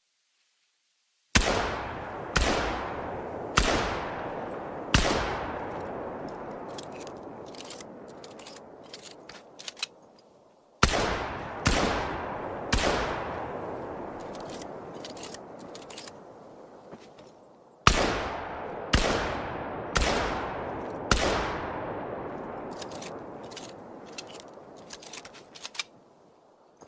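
Strandberg 10SA Executive shotgun firing eleven shots in three volleys of four, three and four. The shots come about a second apart, and each booms and dies away slowly. Faint light clicks sound in the gaps between volleys.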